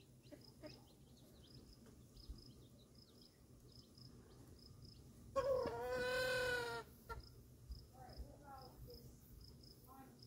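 Crickets chirping steadily, about two chirps a second. A little past halfway a single loud, drawn-out animal call lasting about a second and a half, followed by a few soft short calls.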